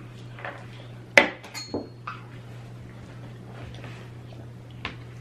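Cutlery clinking against a dish: a few light clicks, with one sharper clink about a second in that rings briefly.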